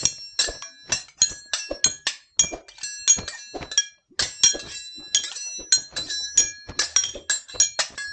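Foley sword clashes made by striking metal tools with a hammer: a fast series of metallic clangs, each ringing briefly, about four a second, with a short break about four seconds in.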